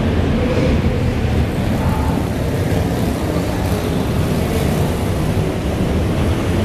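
A pack of slingshot race cars' small engines running hard together as they race round an indoor arena track. The sound is steady and loud throughout.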